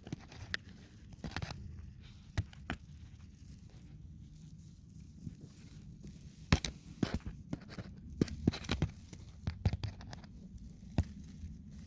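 Close, irregular clicks and crackling rustles made by the person filming, over a low rumble, with a cluster of sharper clicks about halfway through.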